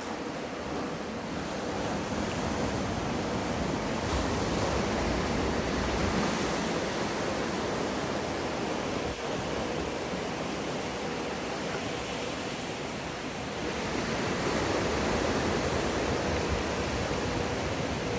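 Waves breaking and water rushing in a surf wave pool: a steady, even wash that swells about four seconds in and again near the end, with a faint steady hum underneath.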